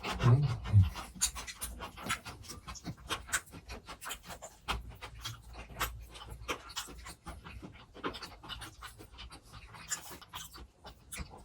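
Irregular crackling and clicking from a samgyeopsal (grilled pork belly) meal, with a few heavier low thuds in the first second.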